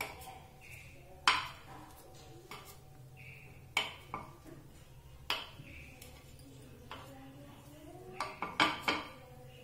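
A steel knife clinking and scraping in the cups of a non-stick appe pan as idlis are prised out and dropped into a stainless steel bowl. There are a few separate sharp clinks, then a quick run of several near the end.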